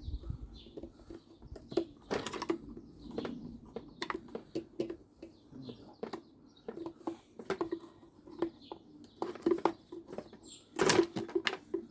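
Scattered clicks, taps and scrapes of hands and a tool on the plastic fuel tank of a Ryobi RBC254 petrol trimmer, as the tank grommet and fuel lines are worked out. The loudest cluster of knocks comes near the end.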